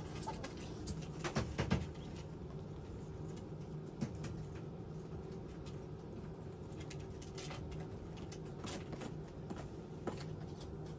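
Chickens moving about on a wooden perch, with scattered light clicks and taps and a cluster of louder knocks about a second and a half in, over a low steady hum.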